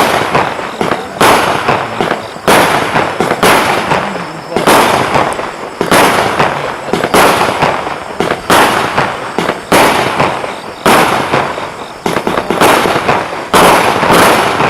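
A 75-shot consumer fireworks battery (cake) firing in steady sequence, about one shot every 1.2 seconds. Each shot is a sharp bang followed by a noisy tail that fades over about a second.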